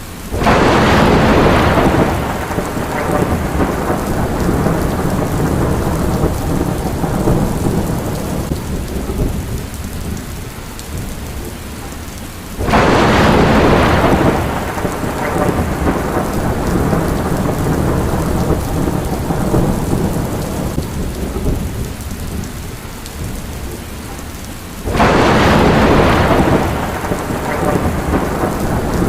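Steady heavy rain with three thunderclaps about twelve seconds apart: each starts suddenly near the start, about halfway through and near the end, stays loud for a couple of seconds, then rolls off into a rumble that fades under the rain.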